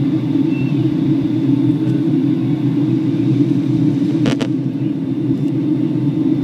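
Steady low rumble of a Boeing 757-200's cabin in flight on descent: engine and airflow noise heard from inside the cabin. A brief click comes about four seconds in.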